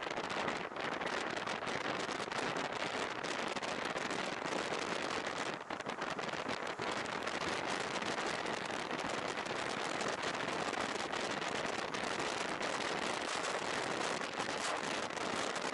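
Steady rushing wind and road noise from riding on a rain-wet road, picked up by a Sony X3000 action camera's microphone and full of crackling. The crackle fits the microphone fault that the uploader thinks is causing a tearing sound.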